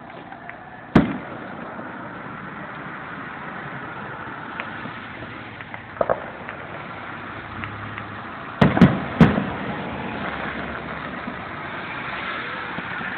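Aerial firework shells exploding: one sharp bang about a second in, a smaller double pop around six seconds, then three bangs in quick succession near nine seconds, over steady background noise.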